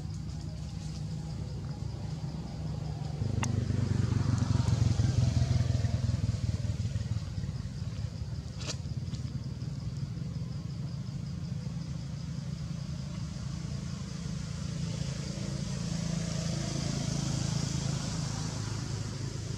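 A motor vehicle's engine hum, low and steady, growing louder about three seconds in and easing off again a few seconds later. A faint steady high buzz runs above it, and there are two sharp clicks.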